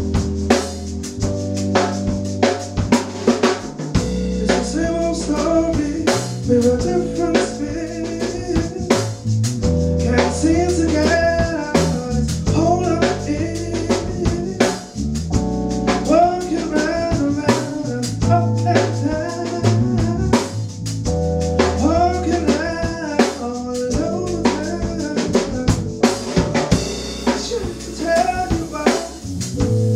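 Live band playing a slow soul-funk tune: a drum kit with snare and rimshot strokes, low bass notes changing every second or two, keyboards, and a curving melodic lead line over the top.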